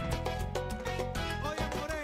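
Salsa music with a steady percussive beat.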